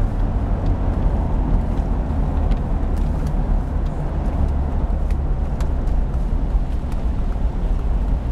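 Car driving at a steady pace, heard from inside the cabin: a constant low rumble of engine and tyre noise.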